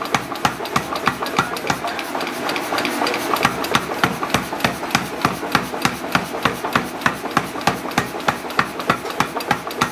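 Mechanical power hammer forging a glowing steel bar: rapid, even blows of the ram on the hot metal, about four a second, easing off briefly a few seconds in before picking up again.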